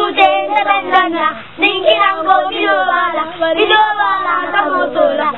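A group of children singing a West African children's song together, with a short break about a second and a half in.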